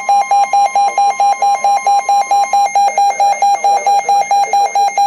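Weather alert radio's alarm beeping rapidly, about four electronic beeps a second, sounding an incoming warning alert. Under it runs NOAA Weather Radio's steady single-pitch warning alarm tone, which cuts off about three seconds in while the beeping carries on.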